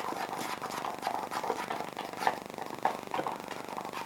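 Hands kneading a sticky homemade slime mixture, making soft irregular scrapes and little sticky clicks, about five in four seconds; the slime has not yet come together.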